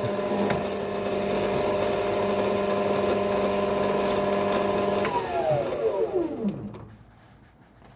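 Metal lathe running steadily with a hum of even tones, then switched off about five seconds in, its pitch falling as the spindle winds down to a stop.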